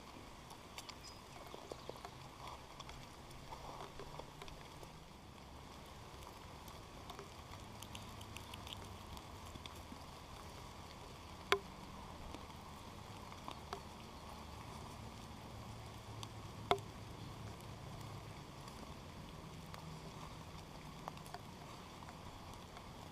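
Rain falling steadily, with scattered drops pattering and ticking and two sharper ticks, one about a third of the way in and one past the middle.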